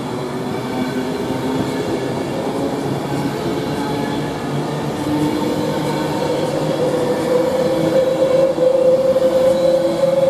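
Avanti West Coast electric express train running through the station, with a steady mechanical hum and rail noise. A whine slowly rises in pitch and grows louder over the last few seconds as the train draws closer.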